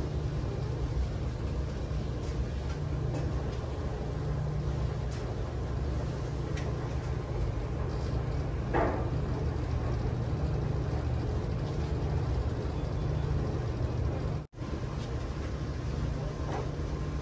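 Dexter T900 commercial front-load washer running, its drum tumbling a load of towels: a steady low rumble with a few faint clicks, cutting out for an instant near the end.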